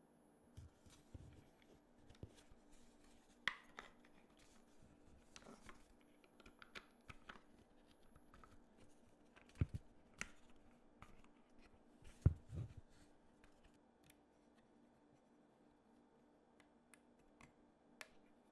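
Light, irregular clicks, taps and short scrapes of small hard objects being handled, with a few dull knocks, the loudest about 12 seconds in.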